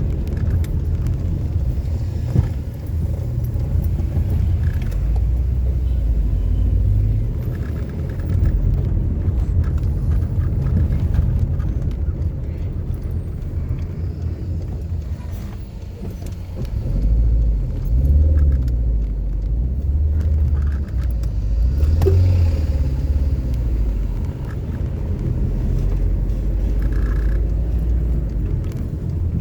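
A car driving along: a steady low engine and road rumble that swells and eases as it goes, with a brief click a couple of seconds in.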